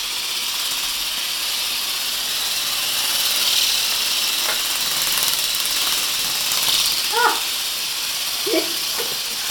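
Steady hiss of a remote-control flapping-wing toy bird in flight, its small motor and rapidly beating wings, with brief faint voices near the end.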